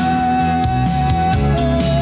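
Background music from a song: a long held melody note over sustained chords, stepping down to a slightly lower held note partway through.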